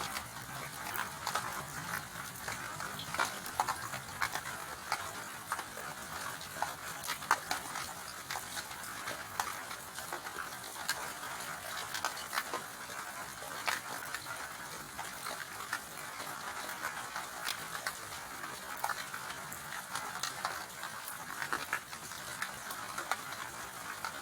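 Steady rain, a constant hiss with many sharp drops ticking irregularly on top.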